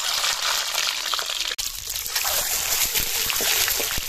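Boiled, peeled eggs sizzling in hot oil in an iron kadai. A few short knocks of a metal spatula against the pan come in the second half.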